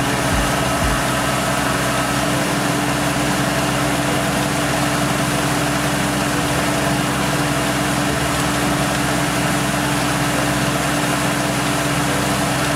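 Tractor engine running steadily under load, driving a rear-mounted water pump, with the rush of the pumped water gushing out.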